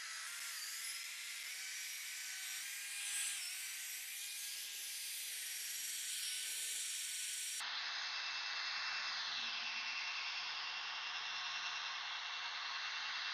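Electric drill spinning a buffing pad against a car's painted bonnet: a steady motor whine over the hiss of the pad, dipping briefly in pitch as the pad is pressed on. About seven and a half seconds in the sound changes suddenly to a thinner, higher whine with more hiss.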